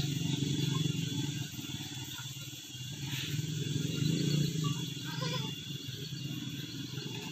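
Etawah crossbreed goats calling: a doe with newborn kids gives low, drawn-out bleats in two longer stretches, and a kid gives a short, higher bleat about five seconds in.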